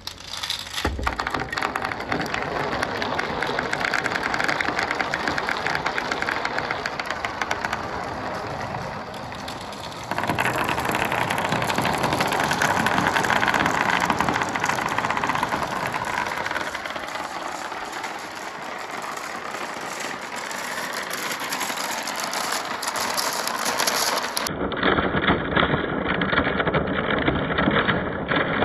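Marbles rolling and clattering along a marble run track, a continuous rumbling rattle of many small clicks. The sound shifts abruptly about ten seconds in and again near the end.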